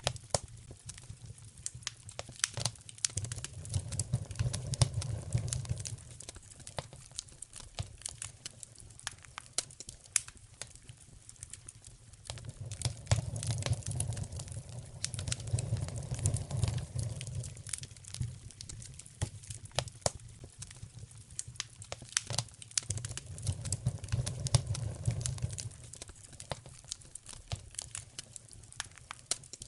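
Wood fire crackling and popping in a fireplace, with dense irregular sharp pops. A low rumble swells up and fades three times.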